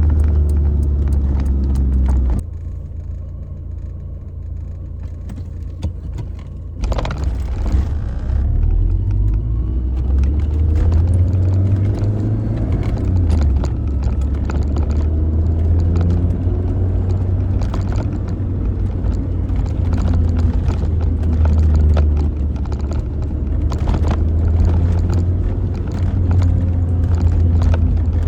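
Lancia Delta HF Integrale Evoluzione's turbocharged 2.0-litre four-cylinder engine running, heard from inside the car. About two seconds in the rumble drops sharply for a few seconds. It comes back with a brief hissing burst near seven seconds, and the engine runs on with rising and falling revs.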